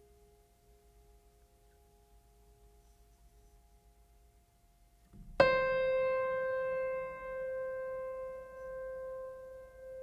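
Background music: a single piano note struck about five seconds in, ringing on and slowly fading, after the last of some soft earlier tones dies away.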